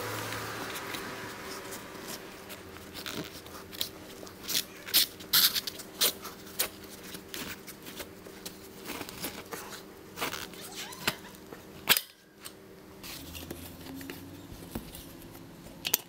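Metal flathead screwdriver scraping and clicking against a metal bicycle rim as it is slid around between rim and tire to lever the tire bead off. The clicks and scrapes come irregularly, some sharp and loud.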